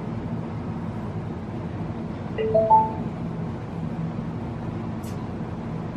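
UKC PA-325BT amplifier through a horn speaker, hissing and humming steadily while idle in Bluetooth mode, with a short three-note rising chime about two and a half seconds in: the amplifier's Bluetooth prompt tone. A faint click comes about five seconds in.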